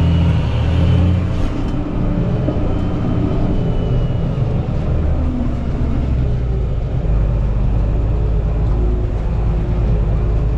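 Fendt Favorit 818 tractor's engine running steadily under load, a low drone heard from the cab that deepens about seven seconds in.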